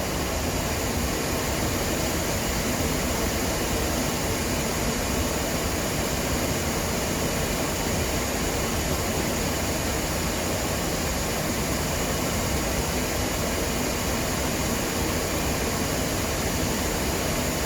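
Steady flight-deck noise of a Boeing 737 climbing after takeoff: an even, continuous rush of airflow, jet engines and air-conditioning at a constant level.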